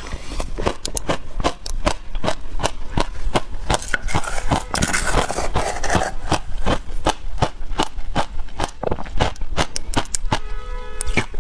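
Chewing and crunching frozen passion fruit ice, several sharp crunches a second. Around the middle a metal spoon scrapes and digs into the ice in a glass container.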